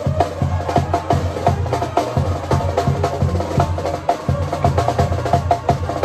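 Drum kit played live with a norteño band: a steady beat of drum strokes under the band's bass and melody.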